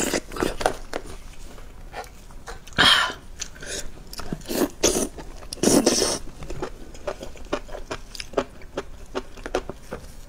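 Close mouth sounds of eating chili-sauced enoki mushrooms: wet chewing, smacking and clicking, with a few louder wet bursts about three and six seconds in.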